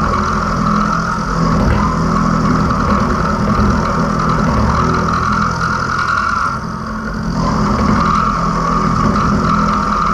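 Small milling machine running under load, its four-flute cutter side-milling a block of mild steel: a steady motor and gear hum under a continuous cutting whine. The cutting whine drops out briefly about seven seconds in, then picks up again.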